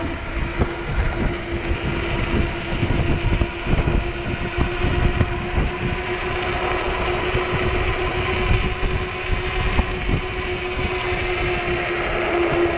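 Electric bike's motor whining at a steady pitch under full throttle, a little stronger near the end, with gusty wind buffeting the microphone.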